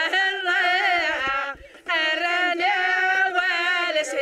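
Group of women singing a traditional song together in long, wavering held phrases, with a short break about one and a half seconds in.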